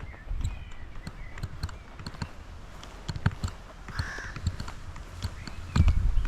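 Footsteps of someone walking, a steady tread of short knocks, with birds calling now and then and one louder call about four seconds in. Wind buffets the microphone near the end.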